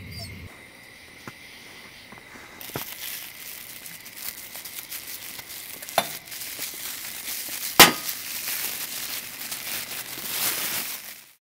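Plastic bag crinkling and rustling as hands knead the food inside it, starting about two and a half seconds in, with two sharp snaps of the plastic, the louder one near the end.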